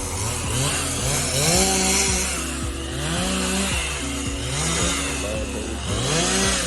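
Chainsaw revving up and dropping back again and again, several times in a row, over background music with a steady beat.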